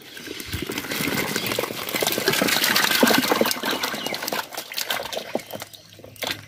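Live catfish and muddy water tipped from a plastic crate into a plastic drum of water: a dense run of splashing and wet crackling that builds over the first couple of seconds, peaks in the middle, then thins to scattered splashes near the end.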